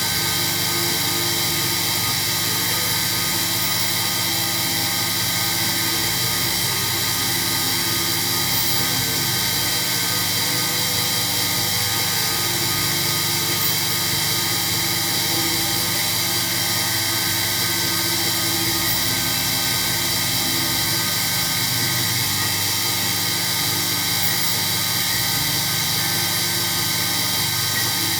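Sherline mini mill's spindle running steadily at high speed while machining a small hole in titanium, a steady whine made of many tones with a hiss over it.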